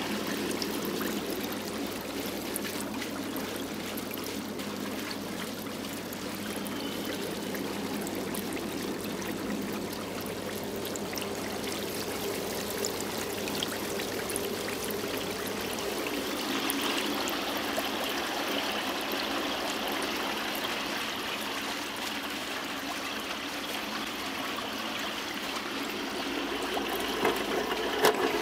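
Aerated pond filter chamber bubbling and churning steadily as air rises through a bed of floating Kaldnes moving-bed media. A low steady hum under it stops about halfway through, and a few knocks come near the end.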